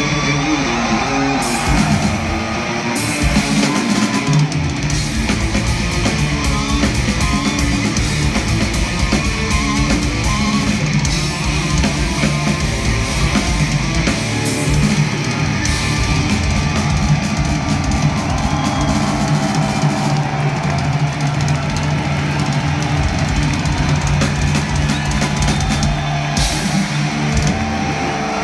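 Heavy metal band playing live at full volume: distorted electric guitars, bass and drum kit, heard from the audience in a concert hall.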